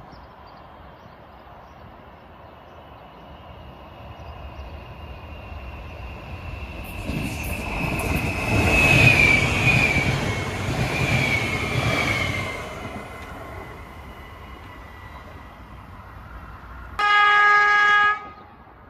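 A train passes on the track, its wheel and rail noise building to a loud rush with a high-pitched whine that falls in pitch, then fading away. Near the end a train horn sounds one steady blast of about a second.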